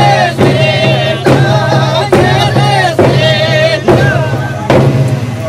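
Several voices singing with heavy vibrato over a steady drum beat, a little under one beat a second.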